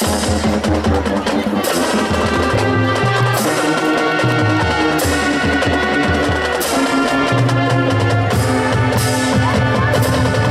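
Marching band of brass and drumline playing full out: held brass chords over a moving low bass line, with loud accented hits about every two seconds.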